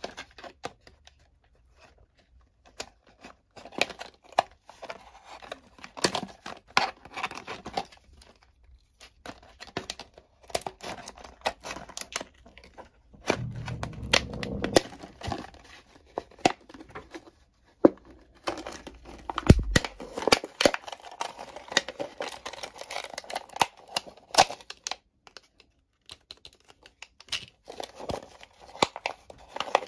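Scissors snipping through the foil wrapper of a chocolate surprise egg, and the foil crinkling and tearing as it is peeled off, in bursts of crackle and sharp clicks broken by short pauses.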